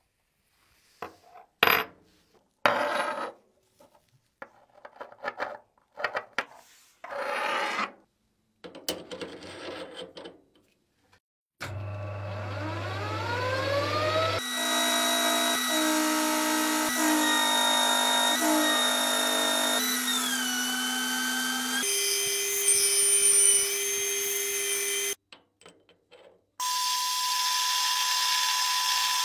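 About eight short scraping or rubbing strokes on a workpiece. Then a small electric power tool spins up with a rising whine and runs steadily, its pitch stepping a few times. It stops briefly near the end and starts again.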